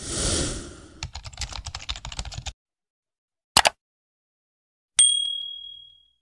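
Subscribe-button animation sound effects: a whoosh, a fast run of typing-like clicks, a single sharp click, then a bell ding about five seconds in that rings and fades over about a second.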